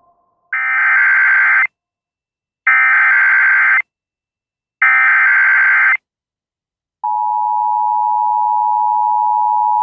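Emergency Alert System header: three bursts of SAME digital data tones, each about a second long, with short silences between. About seven seconds in comes the steady two-tone EAS attention signal, which announces that an emergency alert message follows.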